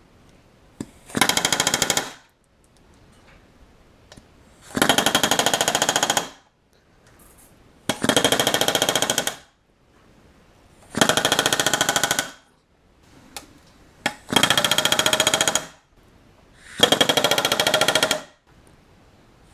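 Pneumatic rivet gun hammering in six short bursts of rapid blows, each about a second and a half long, driving solid rivets against a bucking bar.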